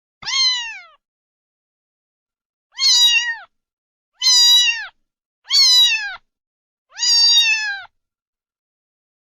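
Domestic cat meowing five times in a row, each meow short and falling in pitch at its end, with silence between them.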